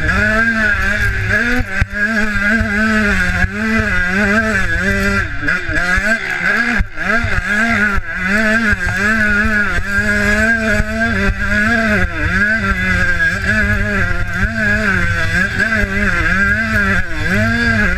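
125cc two-stroke motocross bike engine, heard from the rider's helmet camera, revving up and dropping back again and again as the throttle is worked through the ruts and corners, with wind rumble on the microphone.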